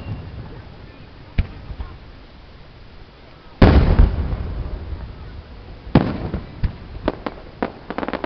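Aerial firework shells bursting: the echo of one boom dies away at first, then a small pop, a large boom about three and a half seconds in with a long rolling echo, another about six seconds in, and a quick string of small pops near the end.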